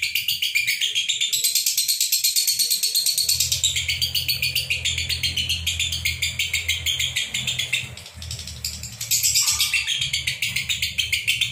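Lovebirds calling in a rapid, unbroken stream of shrill chirps, the non-stop 'konslet' chatter that keepers prize, easing briefly about eight seconds in before picking up again.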